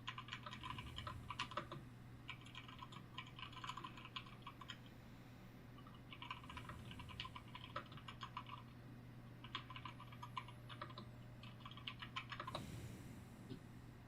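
Computer keyboard typing in four quick runs of keystrokes with short pauses between, over a low steady hum. A brief soft rush of noise comes near the end.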